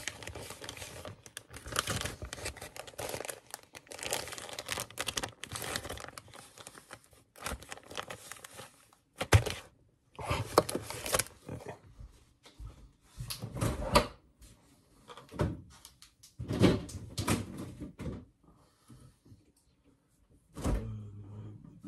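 Plastic zip-top bag crinkling and rustling as it is handled and packed, continuous at first, then in separate bursts, with a few dull thumps on the counter.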